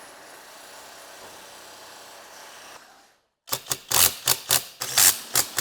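Low steady background hiss, then after a brief drop to silence about three seconds in, a quick run of loud, sharp clicks or taps, roughly four a second.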